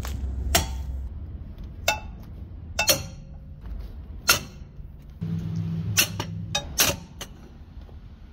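Irregular sharp metallic clinks and clanks, about seven in all, from steel hand tools working at a pickup truck's wheel and lug nuts as the wheel is being taken off.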